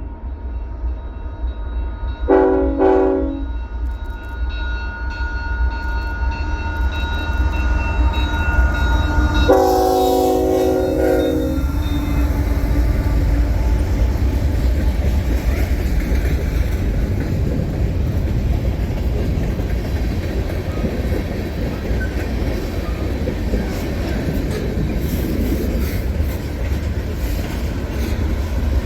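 Diesel freight locomotive's air horn sounding two short blasts, then one longer blast about seven seconds later. The train's engines and wheels on the rails then pass in a steady loud rumble.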